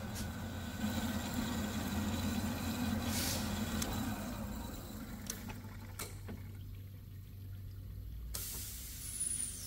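Horizontal metal-cutting bandsaw running with its coolant flowing, sawing through a chrome hydraulic cylinder shaft. The machine noise eases after about six seconds, with a few sharp clicks and a brief high hiss near the end.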